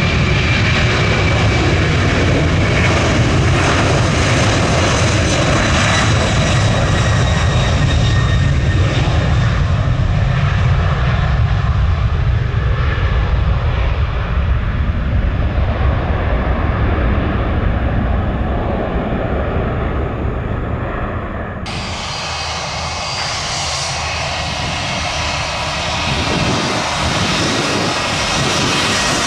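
Jet airliner engines at takeoff power: a loud, steady rumble with a hissing roar that slowly eases. About 22 seconds in the sound changes abruptly to a thinner engine noise from another aircraft.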